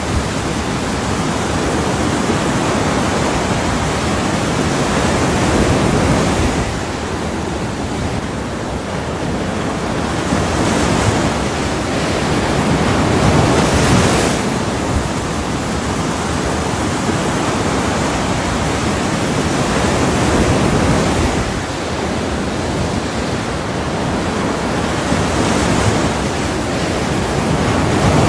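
Ocean waves washing onto a shore as continuous white noise, swelling and falling back in slow surges about every seven seconds.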